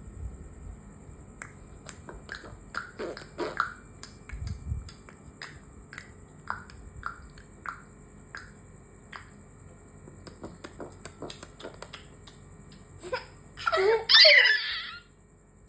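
Mouth sounds made for fun: a string of short clicks, pops and brief chirping blips at an uneven pace, then a loud squealing vocal outburst near the end.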